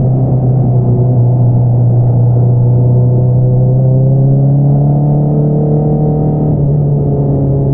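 2022 Honda CBR650R's inline-four engine with an Akrapovič single-outlet exhaust running steadily under way. Its exhaust note rises a little about halfway through, then levels off.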